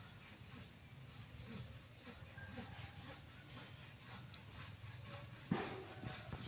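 High, thin chirping calls repeating fairly evenly about three times a second, over a low steady hum. A single dull knock about five and a half seconds in.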